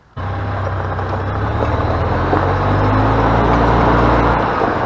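Gas EZGO TXT golf cart's engine running as the cart drives over gravel, its pitch climbing a little partway through. It starts just after the opening and cuts off just before the end.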